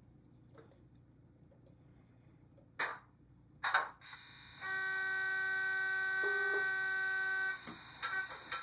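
Two clicks, then electronic train sounds from the LokSound 5 sound decoder's small speaker in an HO scale Tangara model: a steady high whine starts about four seconds in, and a louder held tone joins it for about three seconds, changing pitch briefly in the middle.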